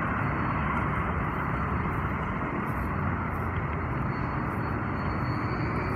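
Steady outdoor background noise: an even rushing hiss and rumble with no distinct events.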